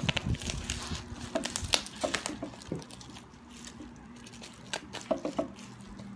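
A parcel being handled and unpacked by hand, with scattered clicks, taps and crinkles, busiest in the first few seconds and again about five seconds in. A steady low hum sits underneath.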